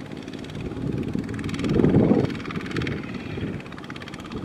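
Single-cylinder diesel engine of a Kubota two-wheel tractor working hard as it hauls a trailer loaded with rice sacks up a slope. It swells loudest about two seconds in.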